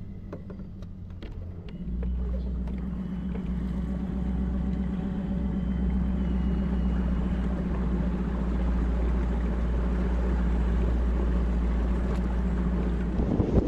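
Bass boat's outboard motor running at low, no-wake speed. About two seconds in it steps up to a steady low drone, and near the end a louder rush of noise comes in as the boat speeds up.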